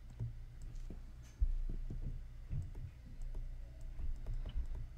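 Stylus clicking and tapping on a tablet screen as words are handwritten, over a steady low hum. A dull thump comes about a second and a half in.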